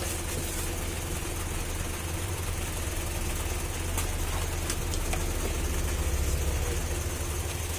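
A steady low machine hum, with a few light clinks of steel utensils about halfway through.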